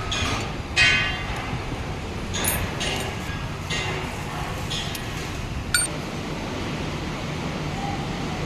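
Metal being struck or knocked together: a handful of irregular sharp clinks, some ringing briefly, the loudest about a second in, over a steady background noise.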